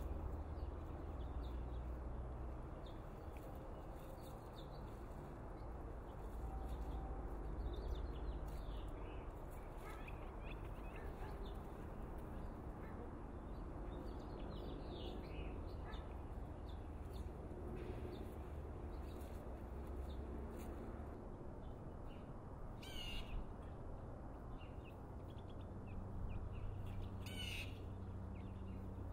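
Outdoor ambience of birds calling on and off, with two louder harsh calls near the end, over a steady low rumble.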